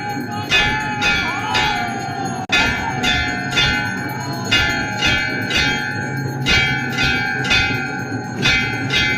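Temple bell struck steadily about once a second, each stroke ringing on into the next.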